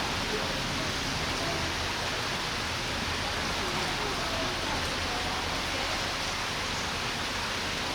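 Steady rushing background noise with faint, indistinct voices murmuring under it.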